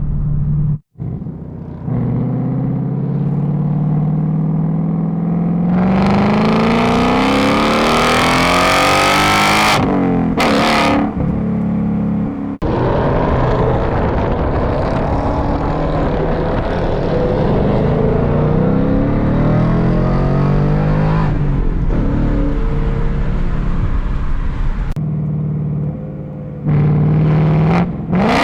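Ford Mustang engines revving and accelerating hard, their pitch climbing steadily for several seconds, then dropping and rising again. The sound breaks off abruptly twice.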